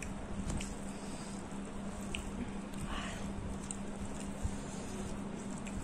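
Fingers squishing and mixing rice with oily fish curry on a steel plate: soft wet squelches with a few small clicks, over a steady low hum.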